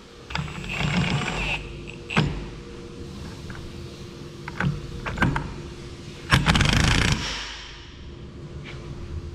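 Cordless impact wrench run in short bursts, torquing the nut that holds the new piston on a hydraulic cylinder rod: one run about half a second in and a louder one about six seconds in, with a few sharp metal clicks between.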